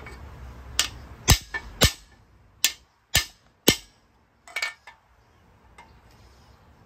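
A small hammer striking the driver rod of a cam bearing installer, driving a new cam bearing into its bore in a Ford 302 small-block engine block: about seven sharp metal-on-metal blows in the first four seconds, followed by a lighter metallic clatter about five seconds in.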